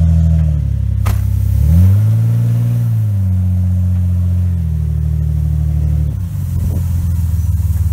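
Jeep Wrangler's engine revving as it drives through mud, the engine note swelling and rising then falling back about two seconds in, and again near the end. A single sharp knock about a second in.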